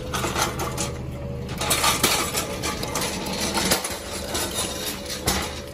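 Loaded pallet jack being rolled off a truck's ribbed metal liftgate and across concrete. Its wheels rattle and clank irregularly, with a few sharper metal knocks, one about two seconds in and another near the end.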